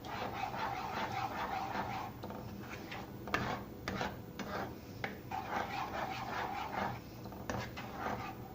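A spatula stirring thick cooked dal into the masala in a wok, scraping along the pan in two long strokes with a few sharp taps against it in between.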